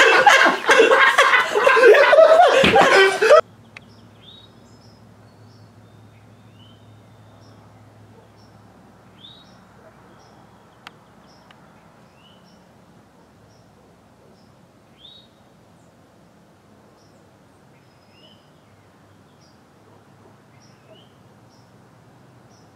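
Loud men's laughter and voices for about three seconds, cut off abruptly. Then a faint outdoor hush with scattered short bird chirps every second or two.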